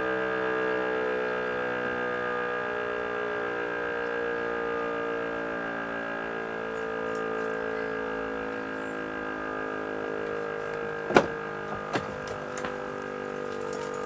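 Rooftop electric fire-brigade siren sounding a steady alarm tone of several pitches at once, slowly growing a little quieter. A few sharp clicks or knocks come near the end, the loudest about 11 seconds in.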